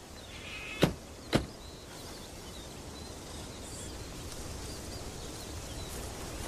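Outdoor rural ambience with birds chirping faintly, a short bird call near the start, and two sharp knocks about half a second apart about a second in.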